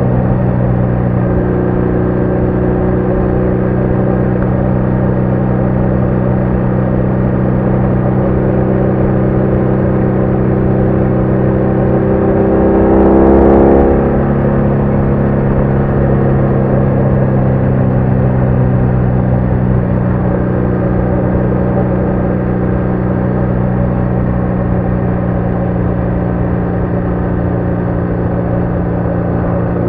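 BMW R1200R's boxer-twin engine running steadily at cruising speed, with a brief swell in pitch and loudness about thirteen seconds in.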